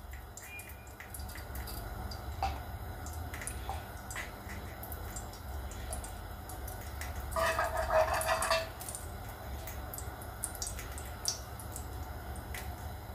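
Ghee melting in a hot nonstick frying pan: faint sizzling with many small scattered crackles and clicks over a low steady hum. About seven seconds in, a louder pitched sound lasts a little over a second.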